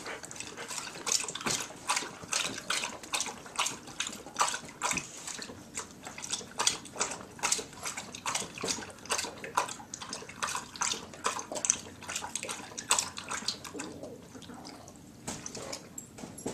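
A Doberman lapping water from a metal pail in quick, rhythmic, wet laps, a few per second, which thin out and stop as he lifts his head near the end.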